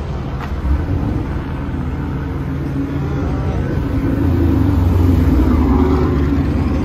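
A car engine running close by, growing louder about four seconds in and easing off near the end.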